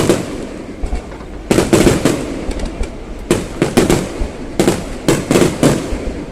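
Fireworks bursting in rapid clusters of sharp bangs, three volleys about a second and a half apart, over a continuous low rumble.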